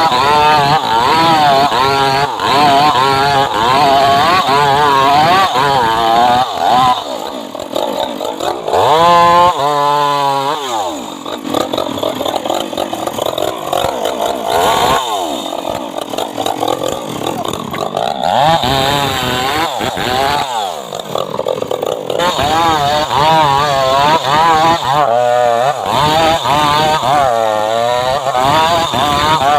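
Chainsaw engine running hard as it cuts trembesi (rain tree) wood. Its pitch rises and falls again and again, and it drops back to slower running briefly around ten and twenty seconds in.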